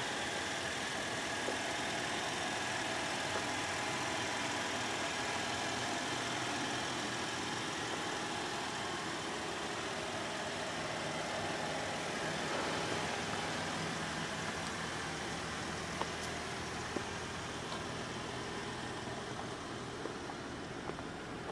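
A steady vehicle engine hum under an even hiss, with a few faint clicks.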